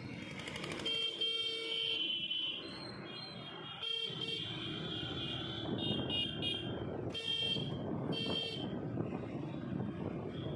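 Street traffic of scooters and motorbikes, with vehicle horns honking several times: two longer honks in the first few seconds, then a run of short toots between about six and nine seconds in.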